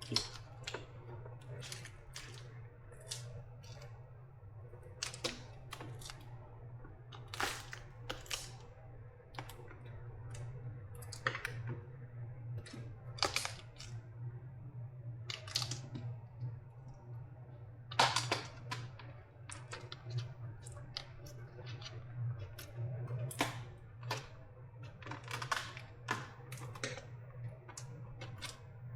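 Irregular clicks, taps and short scrapes of hands and tools working apart a lithium-ion battery pack's wrapping and parts to get at the cells, over a steady low hum.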